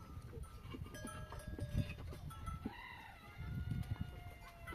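A rooster crowing among other farm-animal calls.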